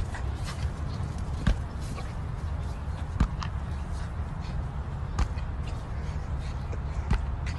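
Beach ball thumping as a small dog knocks it up into the air, five knocks spaced about every one and a half to two seconds, over a steady low rumble.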